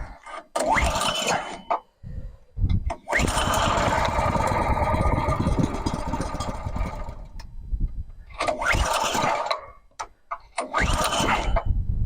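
Petrol engine of a Lumag Rambo HC10 wood chipper being pull-started: short bursts of cranking on the recoil starter, then a run of about four seconds where it fires and goes, fading away, followed by two more short pulls near the end.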